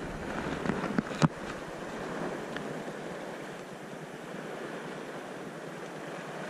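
Steady wash of the sea against the rocks, a soft even rush. A couple of sharp clicks come about a second in.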